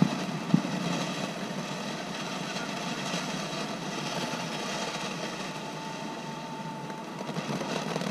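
Fireworks going off: a steady hiss with two sharp pops in the first second.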